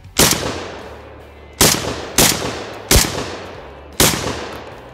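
ATI Bulldog 12-gauge semi-automatic bullpup shotgun firing five shots at an uneven pace over about four seconds, each sharp report trailing off in an echo. It is shooting Remington 1255 fps, 7.5-shot loads, cycling each round.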